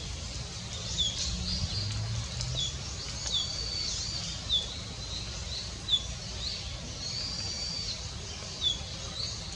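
Small songbirds chirping: short, high, falling notes repeated about once a second, with a few longer high calls among them, over a steady low background rumble.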